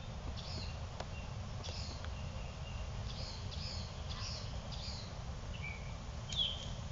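Small birds chirping: short, high, falling calls repeated irregularly, a little louder near the end, over a steady low background rumble.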